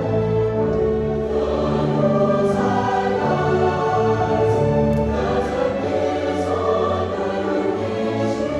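A school orchestra playing slow, sustained chords over low bass notes, with the harmony changing every second or two.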